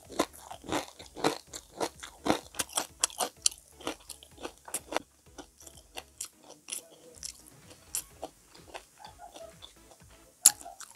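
Close-miked chewing of crispy deep-fried squash okoy fritter, with dense crunching for about the first five seconds, then softer, sparser chewing. One sharp loud click comes near the end.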